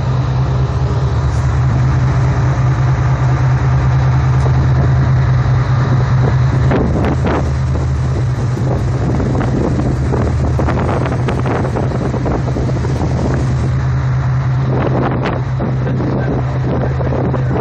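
Speedboat engine running at a steady low drone while under way, with wind and water rushing past and rough bursts of noise now and then, most around the middle and near the end.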